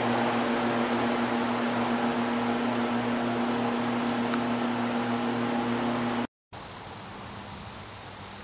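A machine running with a steady low hum and a rushing hiss; it cuts off abruptly about six seconds in, and a quieter steady hiss follows.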